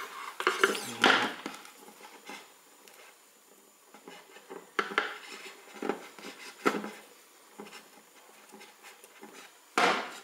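Small clicks, taps and rubbing of wires and a metal bicycle lamp being handled on a workbench. There is a louder cluster about a second in and a sharp knock near the end.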